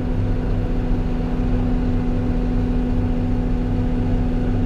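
CAT 323 excavator's diesel engine running steadily under load, with a constant whine over a low pulsing rumble.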